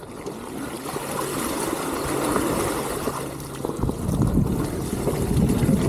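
Water rushing and splashing as an electric mountain bike is ridden through a river, growing louder after the first second, with a heavier low rumble in the second half.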